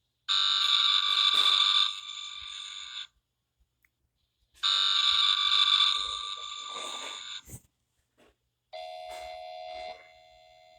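Low-pitched emergency alert system tone, electronic and made of several steady pitches at once. It sounds as two long blasts of about three seconds each. A third, steadier tone starts near the end and drops to a quieter level about a second later.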